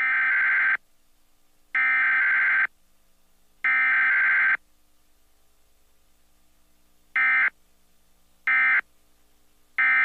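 Emergency Alert System SAME data bursts for a weekly test: three bursts about a second long each, the digital header, then after a pause of about two and a half seconds three short bursts, the end-of-message code.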